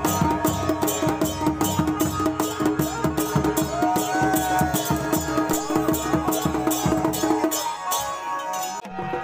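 Kumaoni Holi folk drumming on dhol barrel drums and a damau kettle drum: a fast, even beat of about six sharp strokes a second. A melodic line glides over it from about four seconds in, and the deep drum sound drops away briefly near the end.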